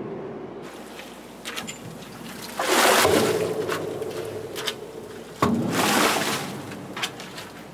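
Red wine splashing and sloshing in a fermentation vat: two loud splashes about three seconds apart, the first a couple of seconds in and the second past the middle, with a few light clicks before them.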